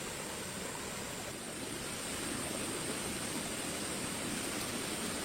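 Steady rushing outdoor noise with a faint, thin high-pitched hum over it.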